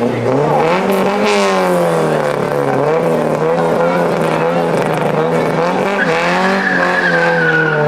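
Car engine held at high revs, wavering up and down, as the rear tyres spin and smoke in a burnout at the drag-race start line. A steady tyre squeal joins about six seconds in.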